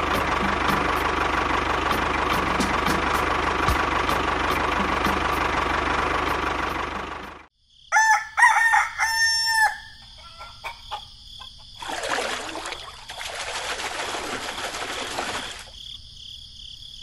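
Tractor engine running steadily, cutting off suddenly about seven seconds in. Then a rooster crows over a steady high insect chirring, and a few seconds later a rushing noise swells and fades.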